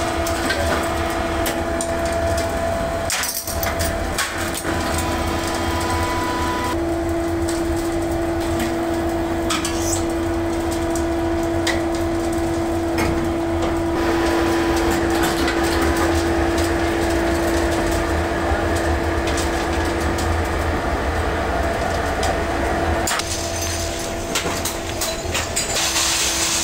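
Die-casting machine running with a steady hum and a constant whine from its hydraulic drive, over scattered metallic clinks and knocks.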